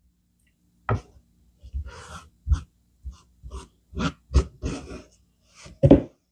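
Hard-boiled eggshell being cracked and peeled by hand over a plastic cutting board: an irregular run of short crackles and taps, the loudest near the end.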